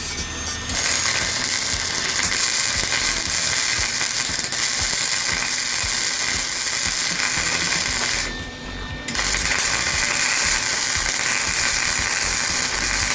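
Wire-feed MIG welder crackling as it lays a bead on the seam of a rusty steel frame spar. Two runs, starting about a second in, with a break of about a second near eight seconds in.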